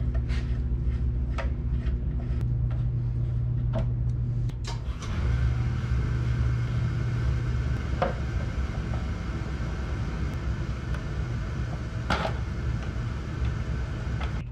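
A steady low hum, with scattered clicks and knocks of hand tools on a motorcycle's front-fender parts as a push-fit clip is pried out.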